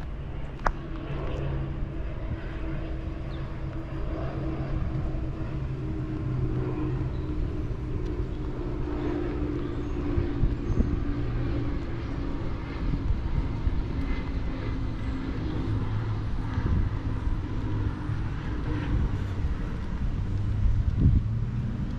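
Engines running steadily outdoors, a low pitched hum that holds throughout, with a few sharp knocks, one about a second in and one near the end.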